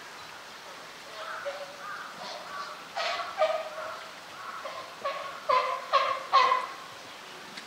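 A bird giving a series of short, pitched calls, a few to a second, getting louder toward the last three calls.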